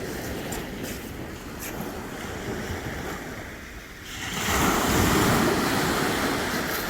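Sea waves breaking and washing on the beach, with wind buffeting the microphone; the noise swells louder about four seconds in.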